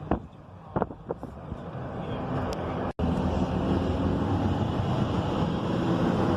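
Steady rumble of a moving vehicle with wind buffeting the microphone, and a few sharp knocks in the first second. The sound drops out for an instant about three seconds in, then comes back louder and steady.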